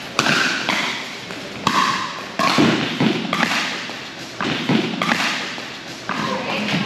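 Pickleball rally: paddles striking the hard plastic ball, about seven sharp pops at roughly one a second, some coming closer together, each ringing out briefly.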